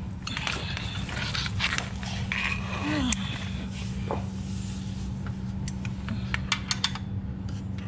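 A wrench clinking and scraping against a car's oil drain plug, with a quick run of sharp metal clicks near the end, over a steady low hum.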